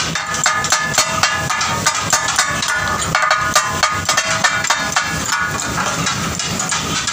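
Rapid, rhythmic clanging of two flat steel blades striking a large iron griddle (tawa) as the cook chops mutton organs for katakat; the clatter that gives the dish its name.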